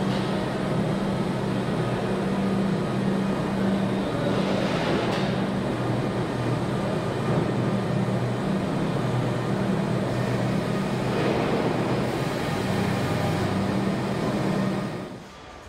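Steady hum of car-assembly-plant machinery and air handling, with a low drone under it; it drops away sharply near the end.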